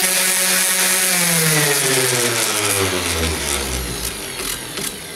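Orbital sander switched off and spinning down: its steady whine falls in pitch and fades over about four seconds, with a few light ticks near the end as the pad slows.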